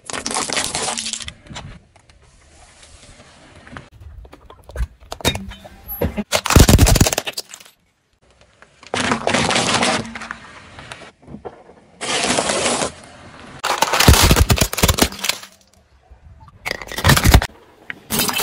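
Car tyre rolling over and crushing small hard objects one take after another: ping-pong balls cracking and popping, then small lids and plastic pipe fittings crunching and snapping. There are loud sharp cracks in several separate bursts, with short quiet gaps between them.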